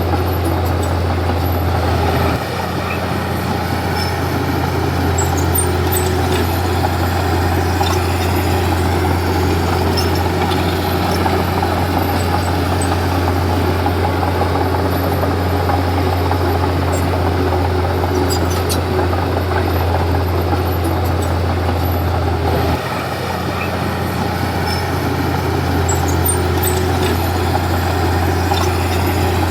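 Komatsu D31P bulldozer's diesel engine running steadily under load, with a low drone; the engine note dips briefly about two seconds in and again near the end, then picks back up.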